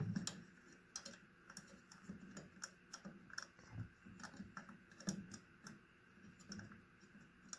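Faint, irregular small clicks and taps of a screw and a metal ceiling-fan mounting bracket being handled and fitted together by hand.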